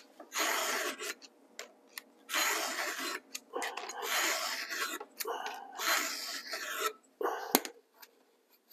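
Stihl 2-in-1 chainsaw sharpener's files rasping across a chainsaw chain cutter in several long, even push strokes, sharpening the tooth. A sharp click near the end.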